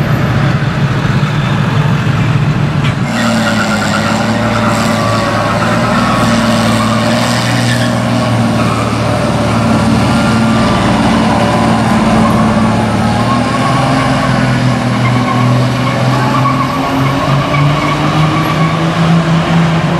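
Pickup truck engines running in slow, crawling traffic, a steady low engine drone that shifts in pitch about three seconds in.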